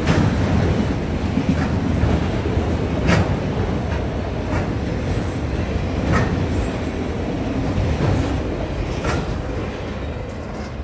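Freight train of autorack cars rolling past at speed: a steady rumble with wheels clacking over the crossing every second or two. The sound eases off near the end as the last car goes by.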